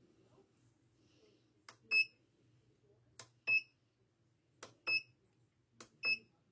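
Four sharp clicks, each followed a moment later by a short, high electronic beep, repeating about every second and a half, like buttons pressed on a device that beeps back.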